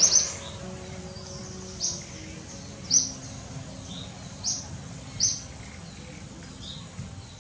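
A bird calling in short, high chirps, one every second or so, over steady low background noise.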